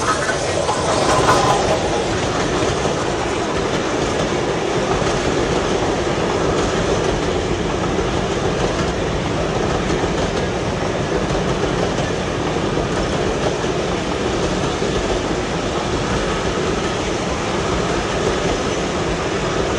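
Model trains running on layout track, a steady rumble and clatter of wheels on rails.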